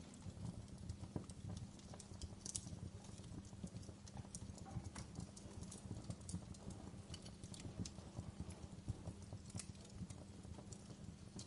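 Fire crackling in a fireplace: frequent irregular pops and snaps over a steady low rumble of burning.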